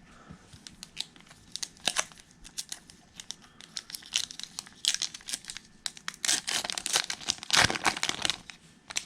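Foil trading-card pack wrapper crinkling and being torn open, a run of sharp crackles that grows densest and loudest from about six to eight seconds in.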